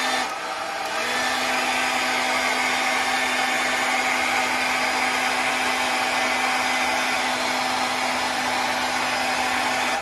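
Conair hand-held hair dryer running on its hot setting: a steady rush of air over a motor hum, blown onto a wet, freshly washed vacuum filter to dry it. The motor's pitch drops briefly about half a second in, then holds steady.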